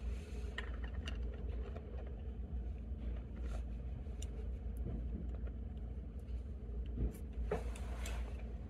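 Small clicks and ticks of steel pliers gripping and twisting a masking-taped finial on a brass ball bearing hinge, a few scattered and a short cluster near the end, over a steady low background rumble.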